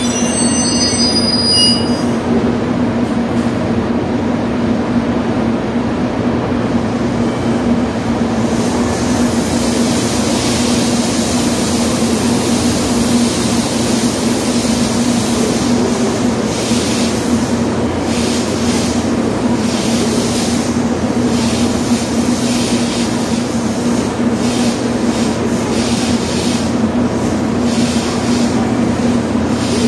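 JR Kyushu 883 series electric train standing at the platform with its onboard equipment running: a steady loud hum with a low drone. High thin tones die away in the first two seconds, and from about eight seconds in a fluttering hiss comes and goes on top.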